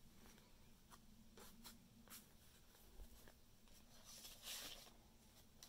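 Faint handling of paper: stiff game cards shifting with light ticks, then a journal page being turned with a louder rustle about four and a half seconds in.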